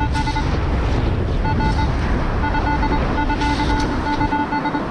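Minelab Equinox metal detector sounding its target tone in quick, repeated broken beeps as the coil passes over a target reading 8, which turns out to be a piece of foil. Wind buffets the microphone and surf washes underneath.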